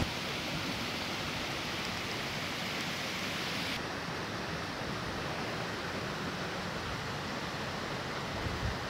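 Steady rushing noise of flowing water, which turns duller about four seconds in.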